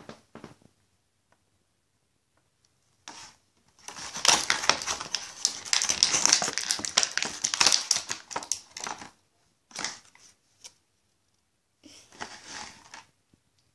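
Crinkling and rustling handling noise in bursts, densest from about four to nine seconds in, with shorter rustles near ten and twelve seconds in.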